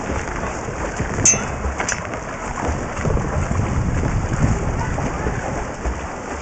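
Underwater rushing and bubbling of a freestyle swimmer's kicks and arm strokes in a pool, heard through an underwater camera. Two sharp clicks about a second and two seconds in.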